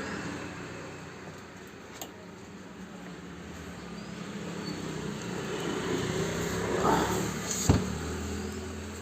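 Motor vehicle engine running, growing louder to a peak about seven seconds in, then fading, like traffic passing. There is a faint click about two seconds in and a sharp knock just after the peak.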